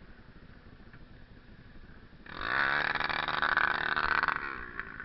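Off-road motorcycle engine revving loudly for about two seconds, starting a little past two seconds in, then fading away.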